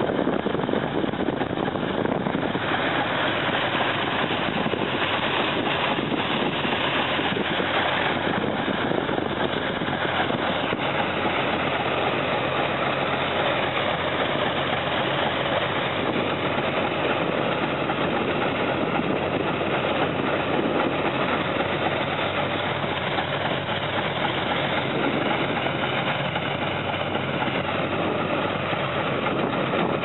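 Truck-mounted rotary snow blower at work in deep snow: the engine and blower run steadily, a dense, even noise with a low engine drone underneath.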